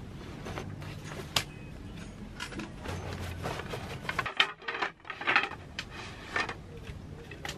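Folding wooden roll-up camping table being taken from its fabric carry bag and unfolded: bag rustling with wooden clicks and knocks as the legs and slats are set out, busiest in the second half.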